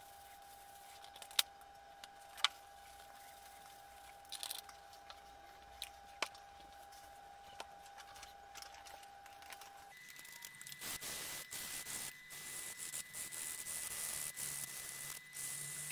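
Gloved hands scrubbing the rusty steel plate of a handsaw, back and forth, to clean off rust: a continuous rubbing scrape that starts about ten seconds in. Before that there are only a few faint clicks.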